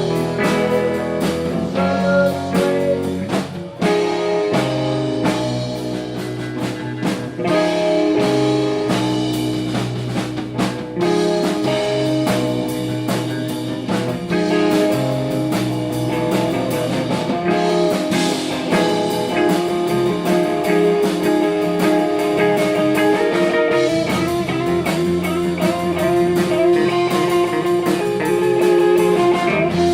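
Blues-rock music with guitar and a drum kit playing a steady beat.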